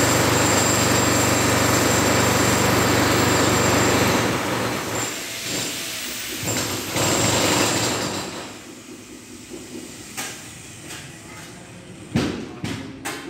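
Electric angle grinder cutting steel bar, a loud steady grinding for about four seconds, then shorter cuts before the disc runs down. A few sharp knocks follow near the end.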